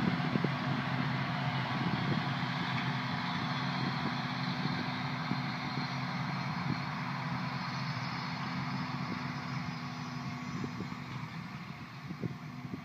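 Large diesel farm tractor running steadily under load as it pulls a dry fertilizer spreader, growing gradually fainter over the last few seconds as it moves away.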